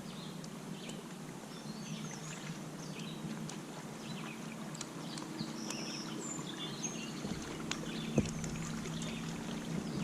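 Minn Kota 38 lb-thrust electric trolling motor on a kayak, humming steadily, with birds chirping over it and a single knock about eight seconds in.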